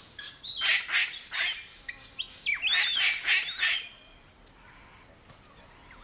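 Palm cockatoo calling: a quick run of harsh squawks mixed with short rising whistles for about four seconds, then it goes much quieter.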